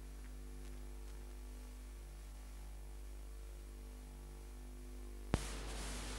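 No sound from the scene, only recording noise: a steady low electrical hum with faint hiss. A single sharp click comes about five seconds in, and the hiss is louder after it.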